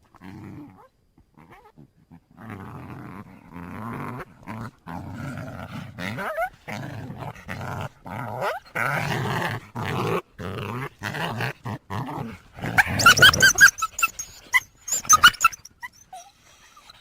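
Coyote calling, with a series of rough, choppy growl-like calls, then a quick run of high-pitched yips about two-thirds of the way through.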